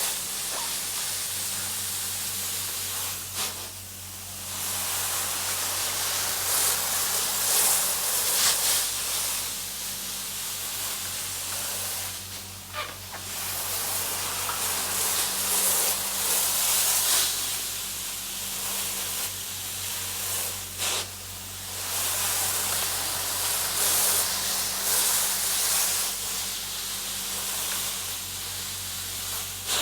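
Truck-mounted carpet extractor's wand sucking flood water out of carpet: a steady hissing rush over the low hum of the vacuum, dropping briefly about four, thirteen and twenty-one seconds in.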